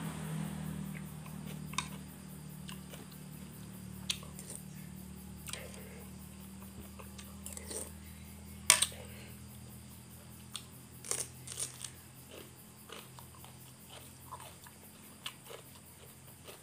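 A man eating with a spoon from a ceramic soup bowl: chewing and mouth noises with scattered sharp clicks, the loudest about nine seconds in and a few close together around eleven seconds.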